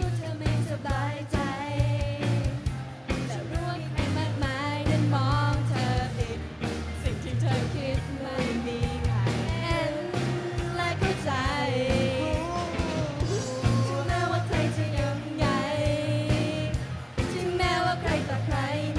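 Live band performing a pop-rock song: women singing lead into microphones over electric guitar and a steady drum beat.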